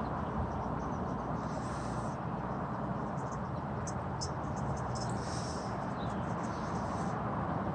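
Raccoon crunching dry cat food and cereal, a scatter of short crisp crunches and clicks over a steady low outdoor rumble.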